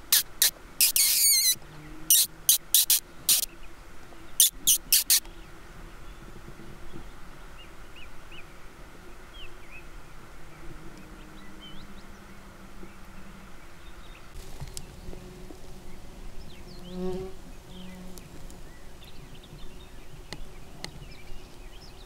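Mosquitoes whining around the microphone. About a dozen loud, sharp clicks come in quick groups over the first five seconds.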